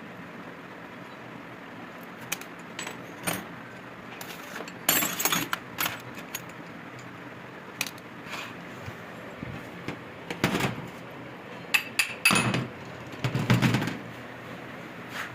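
Metal tools and turbocharger parts clinking and clattering in irregular bursts while the turbo is taken apart, with louder clatters about five seconds in and several more near the end.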